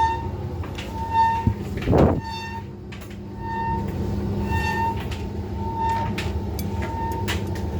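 Indesit tumble dryer running with a low drum rumble and a high-pitched squeak that repeats about once a second, once each turn of the drum; the owner puts the squeak down to the drive belt. A single dull thump about two seconds in.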